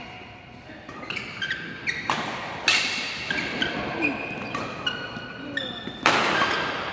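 Badminton rackets striking a shuttlecock in a fast doubles rally: a series of sharp hits ringing in a large hall, the loudest a jump smash about six seconds in. Short high squeaks of court shoes on the floor come between the hits.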